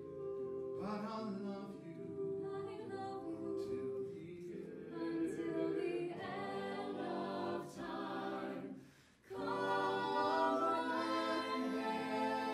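A small mixed ensemble of eight voices, men and women, singing a cappella in close harmony, holding sustained chords. About nine seconds in, the voices break off briefly, then come back in together louder.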